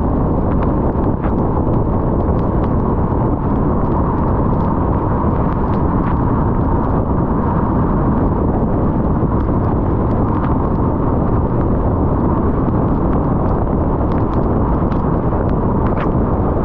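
Loud, steady rumble of road and wind noise from a car driving at highway speed, with scattered faint ticks.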